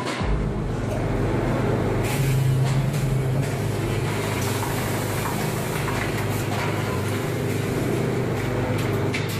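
Steel drum production line machinery running with a steady low hum. Now and then there are short metallic knocks as steel sheets are handled and fed into the forming and welding machines.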